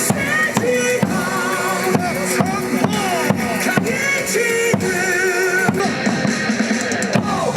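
Upbeat cheer-song music with a steady drum beat and a singing voice, played over a baseball stadium's loudspeakers.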